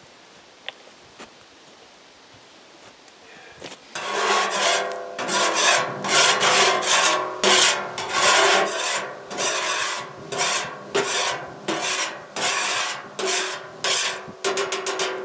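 Repeated rasping, scraping strokes, about a dozen at roughly one a second, starting about four seconds in, with a faint ringing tone beneath them.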